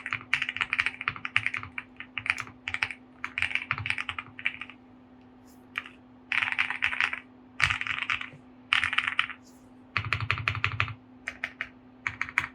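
Typing on a QK65 65% mechanical keyboard with lubed Boba LT 65 g switches, a POM plate and PBT keycaps. The keystrokes come in quick runs broken by pauses of half a second to a second, with one deeper-sounding run about ten seconds in and a few separate strokes near the end. A faint steady hum sits underneath.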